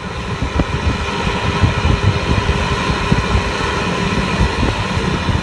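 Wind buffeting the microphone in irregular low gusts over a steady hum of road traffic.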